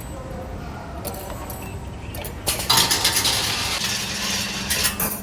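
CNC wire forming machine at work: light metallic clinking and mechanical running, then a loud rattling, hissing burst from about halfway that lasts to the end, with a low hum joining near the end.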